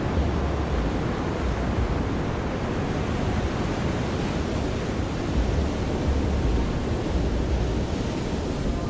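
Big ocean surf breaking, a steady rush of noise with heavier swells in the deep lows, and wind on the microphone.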